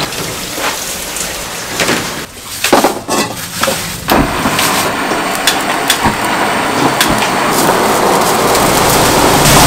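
Irregular splashing and handling noise as washed green chili peppers are moved about. Then, about four seconds in, sliced raw meat hits a hot wok and sizzles steadily, growing louder, with a few clinks of a metal ladle against the pan.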